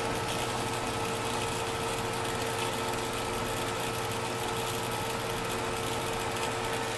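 Biocube aquarium's pump and filter running: a steady motor hum with a constant tone, over the hiss of water moving through the filter chamber.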